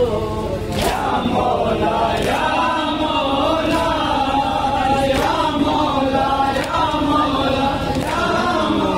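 A group of men chanting a nauha together in unison, with a loud slap of hands on bare chests in matam about every second and a half.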